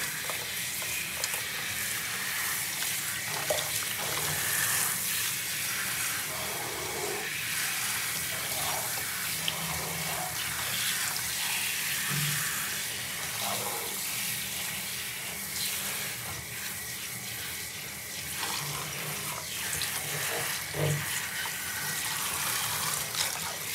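Handheld shower spray running steadily, the water splashing onto a wet dog's coat and into a plastic basin in a bathtub.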